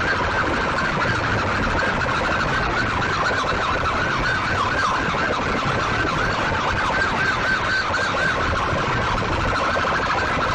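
Siren-like warbling tone blasted at full volume through a large bank of horn loudspeakers on a DJ sound rig, over crowd noise.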